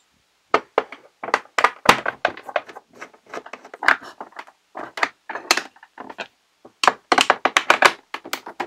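Irregular clicks, taps and knocks of a screwdriver and fingers on the hard plastic case of a toy pinball game as its underside compartment covers are pried open and lifted off, with a quick run of clicks about seven seconds in.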